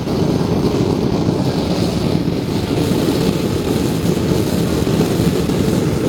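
Whisper Mama gas forge burner running, a loud low rumble that is still rough and uneven just after lighting; it has not yet caught up and settled into a smooth burn.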